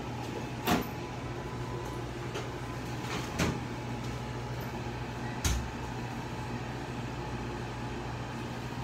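Steady low hum of the shop's room noise, broken by three short, sharp knocks or clacks spaced about two to three seconds apart.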